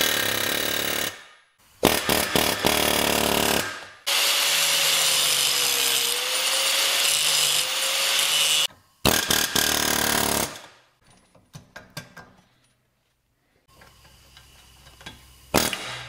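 Power tool running under load in several short bursts with abrupt starts and stops, working to strip an unwanted bracket and nuts from the part. A few light clinks follow in the quieter last seconds.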